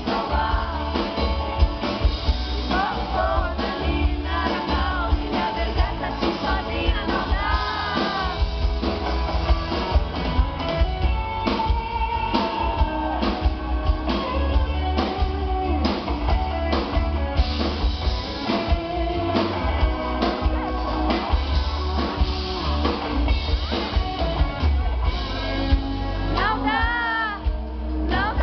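Live band music with a woman singing over guitar, drums and a heavy, booming bass.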